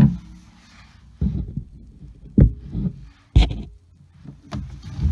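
A series of dull knocks and clunks, about six over a few seconds, as a threaded transmission cooler line fitting and the hands working it bump against the underside of the truck.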